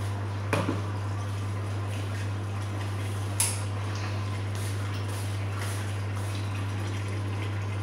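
A steady low hum with faint crackling over it, broken by two light clicks, one about half a second in and a sharper one about three and a half seconds in.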